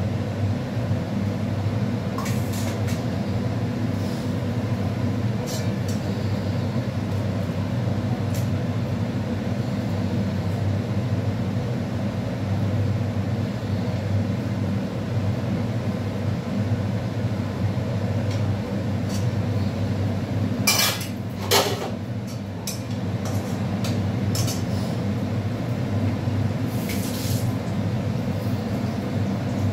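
Kitchen utensils and cookware clinking now and then over a steady low hum, with the loudest clatter about two-thirds of the way through.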